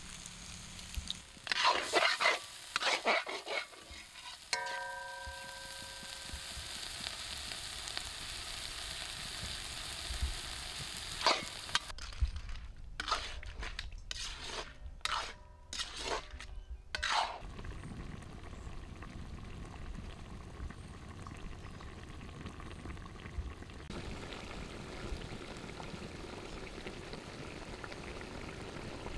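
Crab frying in oil in a pan, sizzling steadily, while it is stirred: clusters of sharp utensil clanks and scrapes against the pan come near the start and again around the middle, with a brief metallic ring about five seconds in.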